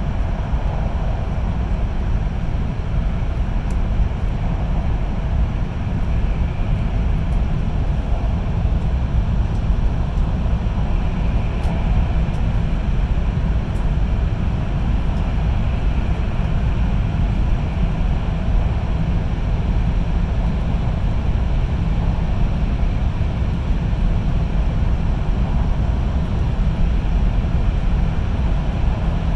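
Steady deep rumble and rushing noise of a Shinkansen train running at speed through the Seikan Tunnel, heard inside the passenger cabin.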